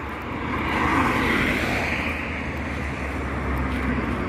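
A car passing on the road: tyre and engine noise swells about a second in and slowly fades, over a steady low rumble.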